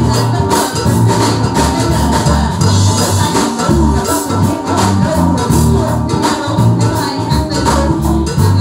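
Live band playing Latin-flavoured music with a steady beat: a singer over shaken percussion, hand drums, keyboard and a strong bass line.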